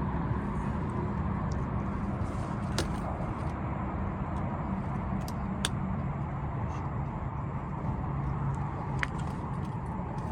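Boat motor running steadily: a low hum under a noisy rush, dropping slightly in pitch about halfway. A few sharp clicks.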